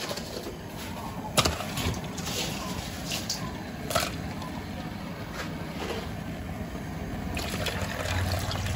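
A few sharp clinks of ice and a metal ladle against an aluminium basin of water set as the lid on a cooking pot. Near the end, water is poured from a jug into the basin, refilling the ice water that cools the lid for the second change of water.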